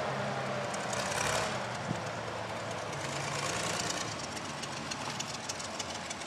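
Hough payloader's engine idling, fairly quiet, with scattered light clicks in the second half.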